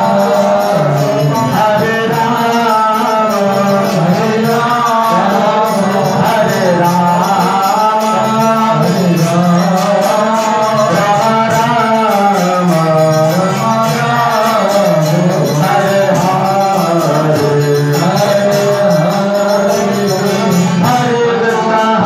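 Devotional chanting sung to a melody, kirtan-style, over a steady beat of jingling hand percussion.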